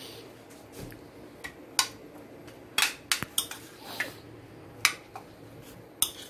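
A steel spoon clinking and scraping against a bowl while stirring a chicken and cheese filling: a scatter of short, sharp clinks at irregular intervals.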